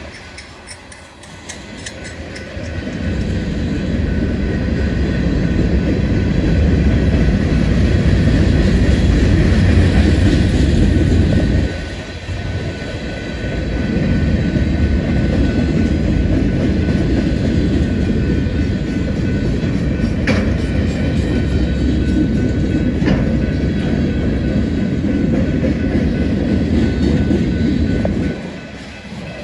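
Northbound BNSF manifest freight train rolling past at close range: a loud, steady rumble of wheels on rail with some clickety-clack over the joints. It swells up over the first few seconds, dips briefly about twelve seconds in and fades away near the end.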